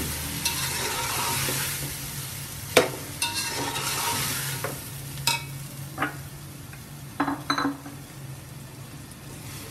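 Chickpeas and onions sizzling in hot oil in a metal pot while a metal spatula stirs them, scraping and clicking against the pot now and then. The sizzle dies down over the second half.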